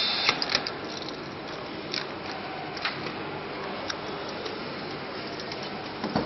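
Scattered light clicks and knocks of an encoder and its cover being handled and fitted onto the back of a servo motor, over steady workshop background noise.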